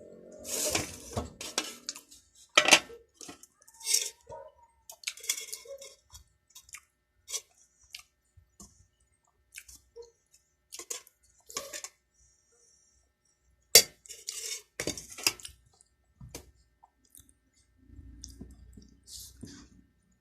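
Close-miked eating sounds: chewing and mouth noises in irregular short bursts, with a few sharp clinks against a dish, the loudest about three seconds in and again past the middle.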